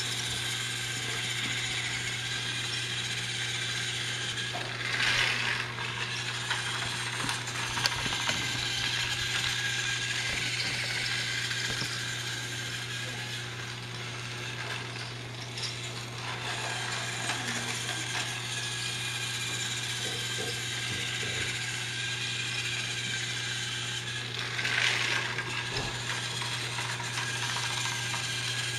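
Battery-powered Thomas the Tank Engine toy train running on plastic track, its small motor and gears whirring steadily. It gets louder briefly twice, about five seconds in and near the end.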